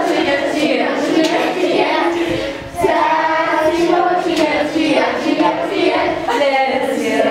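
A group of schoolchildren singing an action song together, with a short break about two and a half seconds in.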